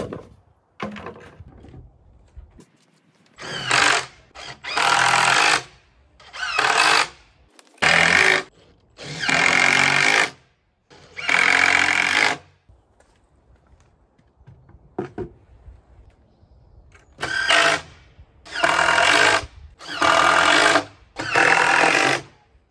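Cordless impact driver driving screws into the wooden panels at the metal corner brackets. It runs in about nine bursts of one to two seconds each, five in the first half and four near the end, with a long pause between the two groups.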